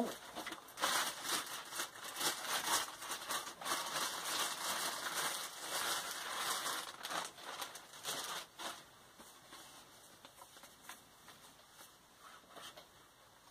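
Packaging crinkling and rustling, with small clicks and knocks, as a new tripod and its parts are handled and taken out of the box. The handling is busiest for the first eight or nine seconds, then turns to sparser, quieter rustles.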